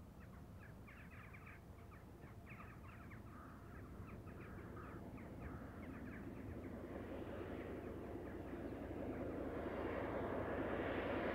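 Birds calling in a run of short repeated calls, then an approaching train whose noise grows steadily louder over the last few seconds.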